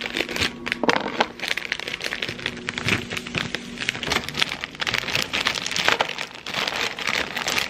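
Plastic candy bag crinkling and rustling in the hands as it is opened and gummy candies are shaken out of it, an irregular run of fine crackles.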